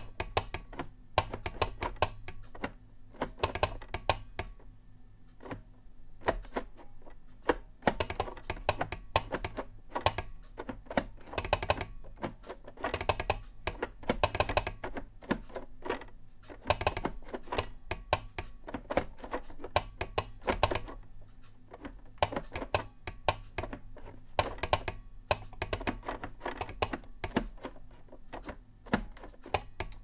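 A steel-and-bakelite telegraph straight key being keyed by hand in Morse code: sharp clicks in quick, irregular groups with short pauses between them as the lever's contacts close and open.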